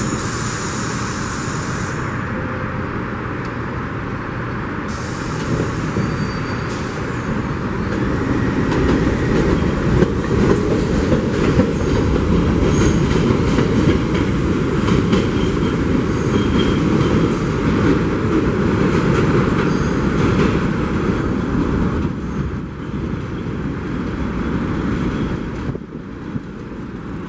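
Ten-car R62A subway train pulling out of an elevated station and running off down the track: a steady rumble of wheels on rail with clicks from the rail joints and faint wheel squeal. It is loudest midway and fades as the train recedes near the end.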